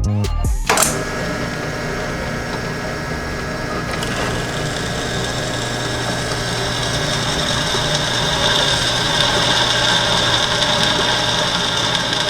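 Angle grinder cutting thick steel plate, starting suddenly about a second in and running steadily, its high grinding tone growing stronger in the second half.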